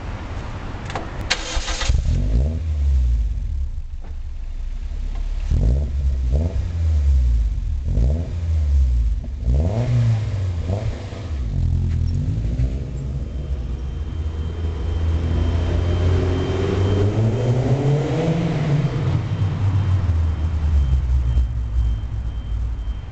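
Toyota MR2 Roadster's 1.8-litre four-cylinder engine through a new aftermarket Hayward & Scott exhaust, echoing in a concrete car park. It is revved several times in quick succession at a standstill, then the car accelerates away with a long rising engine note.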